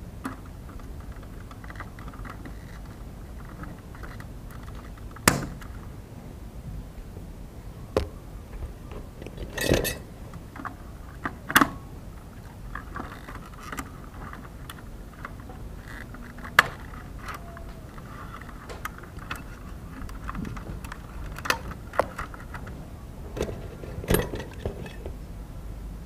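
Scattered sharp clicks, taps and light metallic clinks of hand tools and small parts being handled during an air-conditioner fan motor repair, a handful of separate strikes at irregular intervals over a steady low hum.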